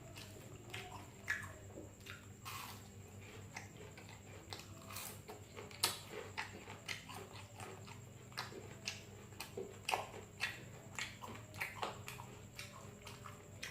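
Close-miked mukbang eating: wet chewing and lip smacking, an irregular run of sharp mouth clicks several times a second.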